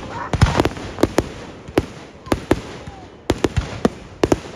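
Fireworks going off: a run of sharp, irregular bangs and cracks, about three a second.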